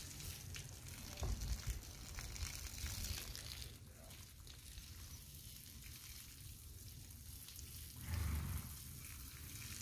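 Garden hose spraying water onto a horse, a steady hiss that is louder for the first few seconds. A short low thump about eight seconds in.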